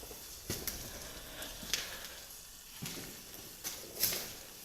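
Faint crackling and rustling of debris being disturbed, broken by about half a dozen short, sharp clicks and knocks.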